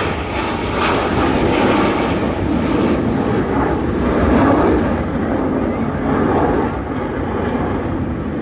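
Airplane flying past with a loud, steady rushing engine noise that swells to its loudest about halfway through and then eases a little.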